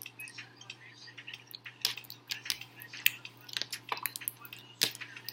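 Metallic slime being squeezed and stretched by hand: a quick run of small wet clicks and pops, with a few louder snaps, about 2, 3 and 5 seconds in.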